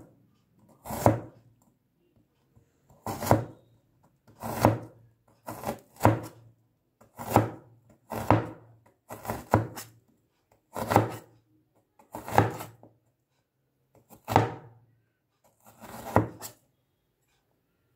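Stainless steel cleaver slicing an onion on a plastic cutting board: separate slow strokes, roughly one a second and unevenly spaced, each ending as the blade knocks on the board.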